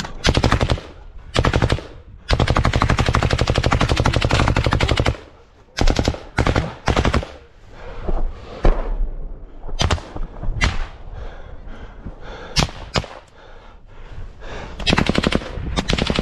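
Assault rifle fired on automatic from close by, in bursts. There are two short bursts, then a long burst of almost three seconds, then shorter bursts and single shots.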